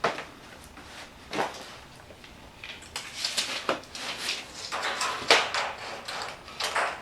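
Short scraping and sliding strokes on a sheet of sheet metal as a cutting pattern is marked out, a single stroke at the start and another about a second and a half in, then a quicker run of strokes through the second half.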